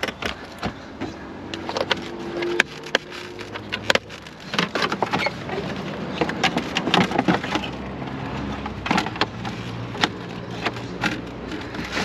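Irregular clicks, knocks and rustles as a Traxxas X-Maxx RC truck is handled: its 4S LiPo battery packs are lifted out and its plastic body shell is set down onto the chassis. A low steady hum runs underneath.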